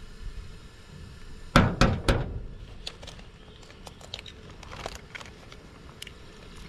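An egg knocked three times in quick succession against a hard tabletop to crack it, followed by the light crinkling and clicking of a plastic zipper freezer bag being handled.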